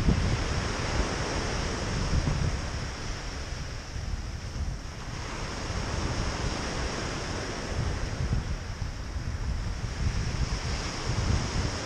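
Small waves breaking and washing up a pebble beach in a steady wash, with wind buffeting the microphone in a low, uneven rumble.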